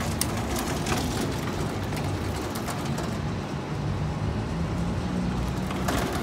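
Loaded steel trolley rolling on small caster wheels over asphalt: a steady rumble with a few clicks and knocks, near the start.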